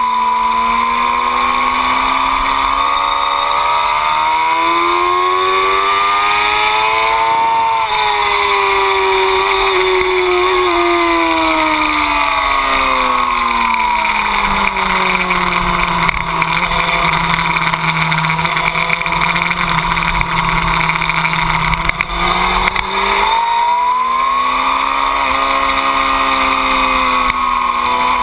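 A 2008 Yamaha R6's inline-four engine under way on a track: its pitch rises for the first seven seconds or so, falls back over the next several seconds, holds low and steady, then climbs again near the end and levels off.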